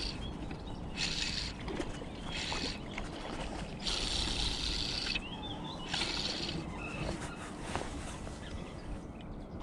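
Shimano Stradic 2500 spinning reel working in short spells, several times, as a hooked fish is brought in.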